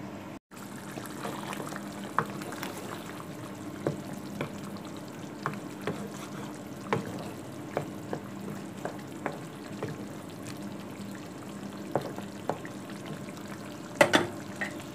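Mutton and arvi (taro) curry simmering in a pan, with frequent small bubbling pops and sizzle over a steady low hum. Near the end there is a cluster of louder knocks.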